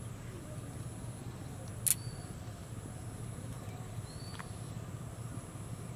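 A steady low hum under a faint high whine that breaks off every second or so, with one sharp click about two seconds in and a softer one past the middle.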